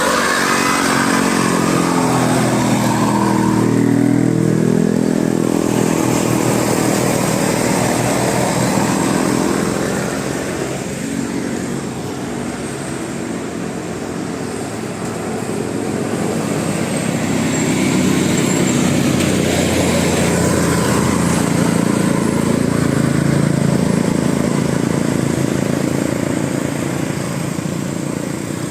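Road traffic: motor vehicle engines passing close by, their pitch rising and falling as they go. It is louder for the first ten seconds or so, eases off, then builds again with another pass.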